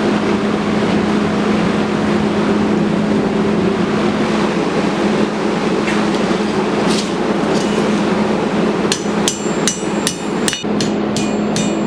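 Hand hammer striking a piece of coil spring steel on the anvil to straighten it, a quick run of ringing blows at about three a second starting about nine seconds in. A steady roar with a low hum sits underneath.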